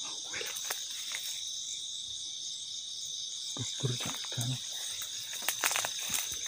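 Steady, high-pitched chorus of night insects trilling continuously, with a few brief low murmurs and faint clicks partway through.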